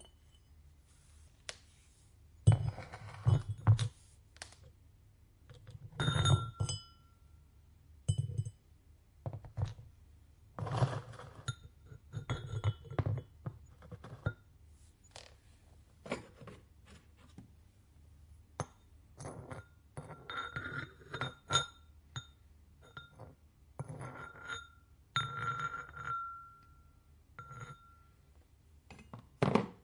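Pots, tools and ceramic ware being handled in a pottery studio: irregular dull thunks and light clinks, some of the clinks ringing briefly.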